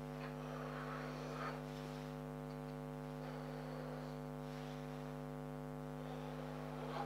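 Steady electrical hum, with a few faint soft scrapes of a plastic knife drawn through rolled puff pastry along a cardboard template.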